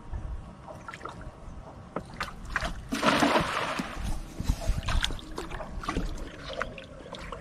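A cast net thrown from a wooden boat lands on the water with one brief splash about three seconds in. Around it are small knocks and water sounds from the boat.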